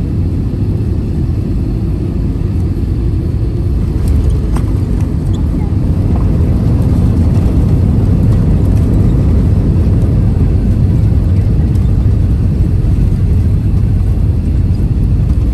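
Cabin noise of an Airbus airliner rolling along the runway just after touchdown: a loud, steady low rumble that grows somewhat louder about six seconds in, with a few faint clicks.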